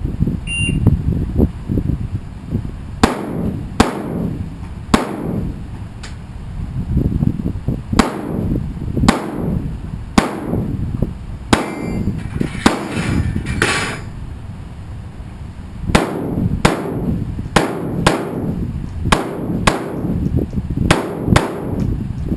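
Shotgun firing in strings of quick shots about a second apart, roughly twenty sharp reports that ring out after each one, with a dense rattle of clicks midway and low wind rumble between strings.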